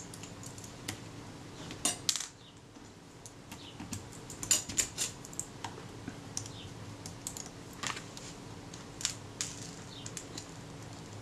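Irregular small metallic clicks and taps from hands working on a Kodak Retina IIIS camera, refitting its film advance lever, over a faint steady hum.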